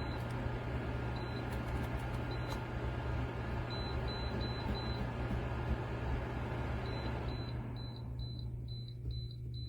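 DREO PTC ceramic space heater running with a steady fan whoosh and a low hum, while short high beeps sound in quick succession as its temperature setting is stepped up. About eight seconds in the fan's whoosh dies away as the heater shuts off.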